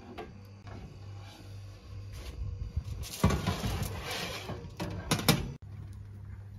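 Foil-lined metal baking tray pulled out of the oven: about a second and a half of scraping rattle and crinkling foil, then two sharp clacks. A steady low hum runs underneath.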